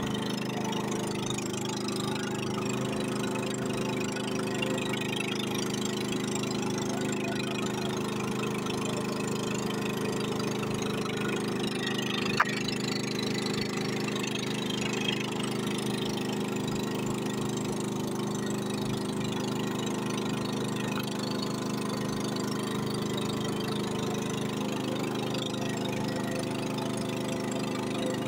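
Small motor boat's engine running steadily while under way, with one sharp click about twelve seconds in.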